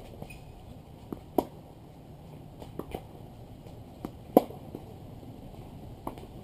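Tennis rally on a hard court: sharp pops of a racket hitting the ball, the loudest about a second and a half in and again just past four seconds, with fainter ticks of bounces and distant shots between.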